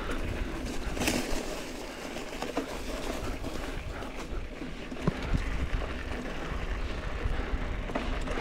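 GT Aggressor Pro mountain bike riding over a rocky dirt trail: steady tyre and drivetrain noise with a few sharp knocks and rattles from the bike, and wind rumbling on the microphone.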